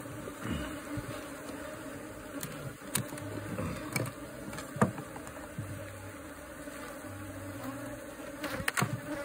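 A honeybee colony buzzing steadily, with a few sharp knocks and clicks, the loudest about five seconds in.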